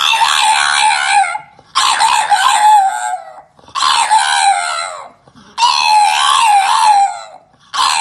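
An animal's loud, wavering cries, repeated as long calls of about a second and a half each with short breaks between them.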